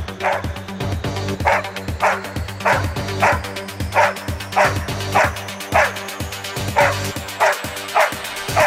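A Belgian Tervueren barking over and over, about two barks a second, each bark dropping in pitch: a search-and-rescue dog's bark alert at the person it has found. Background music plays underneath.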